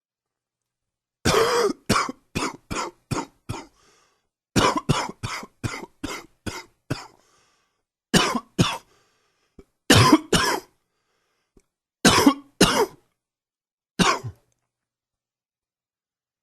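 A man's coughing fit from a cold: two rapid runs of about six to eight hacking coughs each, then coughs in pairs a couple of seconds apart, ending with a single cough.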